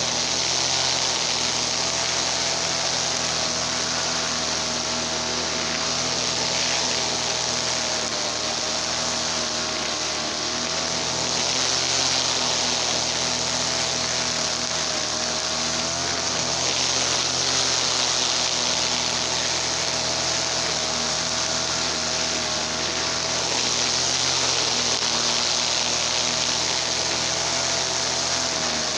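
Small two-stroke engine of a TL33 gasoline brush cutter running steadily at high revs, its pitch wavering slightly, with gentle swells in loudness.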